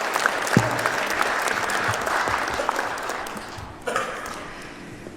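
Audience applauding after a speech, dense clapping that gradually fades away, with a single low thump about half a second in.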